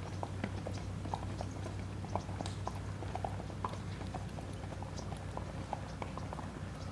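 Racehorse hooves walking on a dirt track: soft, irregular hoof falls over a steady low hum.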